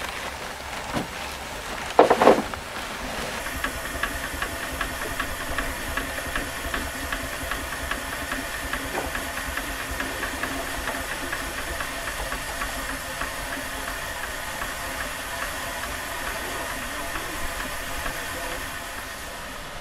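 Steam traction engine running with a steady, fast mechanical beat and a hiss of steam, after a few loud knocks about two seconds in.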